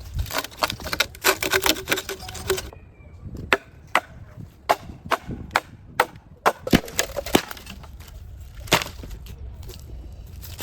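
Wood being sawn for the first few seconds, then a run of sharp chopping knocks on wood, about two a second, thinning out toward the end.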